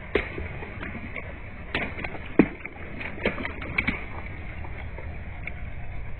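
Objects being crushed under a car's tyre: a quick run of sharp cracks and pops over a low steady engine rumble, the loudest crack about two and a half seconds in, then only the rumble.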